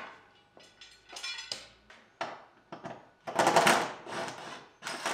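A run of short, irregular clanks and scrapes of metal parts and tools being handled during exhaust work, with the loudest clatter a little past halfway.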